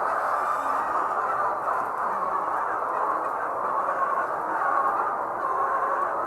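A large flock of layer hens calling all at once in a dense, steady chorus.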